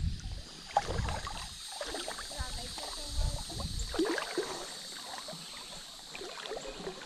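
Creek water splashing and sloshing irregularly in shallow water, with a few low rumbles about a second in and again around three to four seconds.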